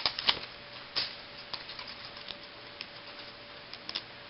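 Baseball trading cards being handled and flipped through, giving scattered faint clicks and ticks.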